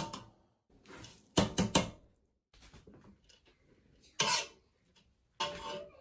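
Metal spoon knocking and scraping against a wire-mesh strainer and the side of a cooking pot as drained rice is spooned in and spread. There are a few sharp clinks, three in quick succession about a second and a half in, and a longer scrape a little after four seconds.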